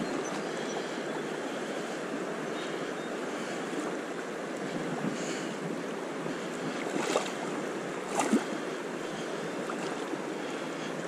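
Steady rush of a shallow, choppy river current, mixed with wind buffeting the microphone. A few brief sharp knocks stand out, about seven and eight seconds in.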